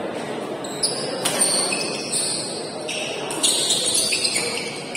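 Badminton rally: several sharp racket hits on the shuttlecock, with short high squeaks of shoes on the court in between and a steady murmur of spectators in the hall.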